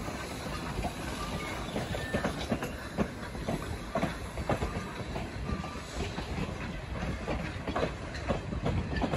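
Passenger-train cars rolling over jointed track, heard from aboard the train: a steady rumble with frequent irregular clicks of the wheels over the rails.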